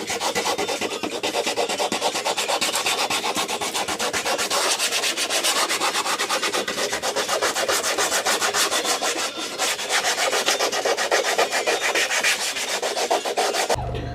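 Sandpaper being worked rapidly and steadily over a car bumper: a fast, even, rasping rhythm of strokes that runs without a break.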